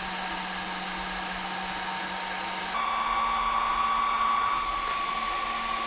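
Cooling fans of an RC battery discharger running hard, a steady rush of air with a whine. About three seconds in it gets louder and the whine shifts higher, then it cuts off abruptly.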